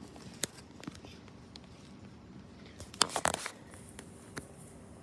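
A few scattered clicks and knocks over a faint steady background, with a brief flurry of them about three seconds in; no alarm tone sounds.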